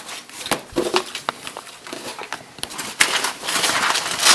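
Paper and plastic rustling and crackling in irregular short clicks: photo pages and sleeves being handled and turned.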